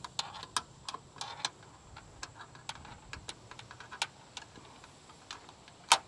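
Small, irregular clicks and taps of a support bracket and cap screws being handled and fed into a pickup's roof-mounted antenna bracket, with one sharper click near the end.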